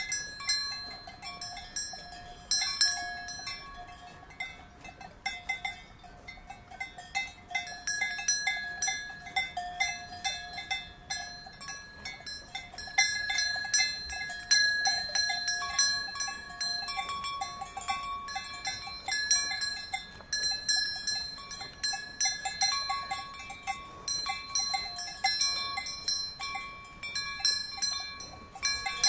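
Cowbells on grazing cows clanking irregularly as the animals move their heads, several bells at different pitches ringing over one another.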